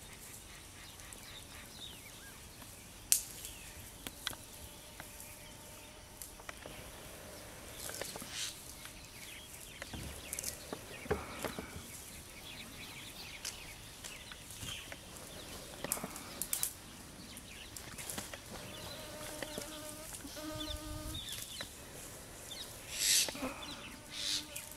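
Greater one-horned rhinoceros grazing in tall grass: scattered soft rustles and tearing of grass stems as it crops, with a louder rustle near the end. A brief pitched sound comes a little before that.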